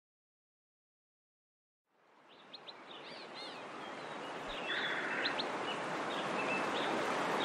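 About two seconds of silence, then outdoor ambience fades in and grows steadily louder: a steady hiss with birds chirping over it.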